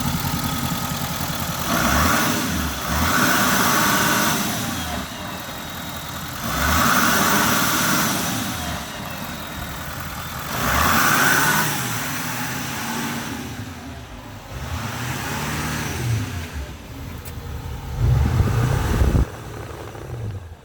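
Nissan Titan XD engine with an aFe Magnum Force intake, revved up several times, each rev a surge of loud intake noise. After the revs it settles back to a lower running sound, with a deeper, louder burst near the end.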